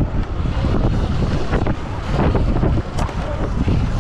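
Heavy wind buffeting on the rider's onboard microphone while racing a stock Sur Ron X electric dirt bike over the dirt track, with a dense low rumble and a few knocks from the bike. A sharp click about three seconds in.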